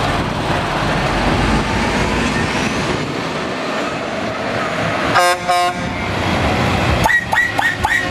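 Heavy MAN truck pulling out with its diesel engine running, and a truck horn sounding: two blasts about five seconds in, then a quick run of four short, higher toots near the end.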